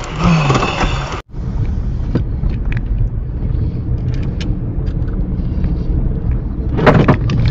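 Car running and rolling slowly, heard from inside the cabin as a steady low engine and road hum. In the first second, rain hiss also sits over it before the sound cuts out briefly and changes. A louder, brief sound comes near the end.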